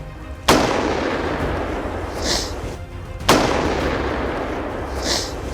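Two rifle shots about three seconds apart, each a sharp crack followed by a long rolling echo that dies away over a couple of seconds.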